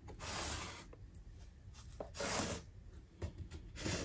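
Felt-tip permanent marker drawn along the layout's base surface, tracing around a model building's footprint in three short strokes.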